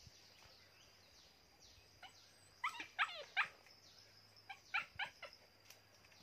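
A small dog giving short, high yips in two quick bursts, about three seconds in and again about five seconds in.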